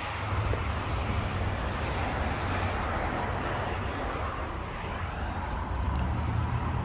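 A steady low rumble with a hiss over it, without clear starts, stops or single events.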